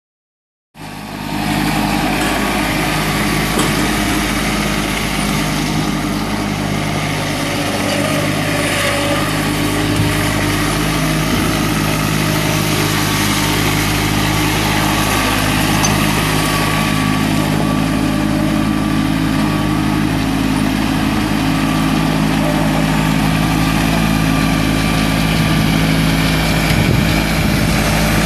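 New Holland TC30 compact tractor's Shibaura three-cylinder diesel engine running steadily as the tractor is driven. The sound cuts in suddenly about a second in.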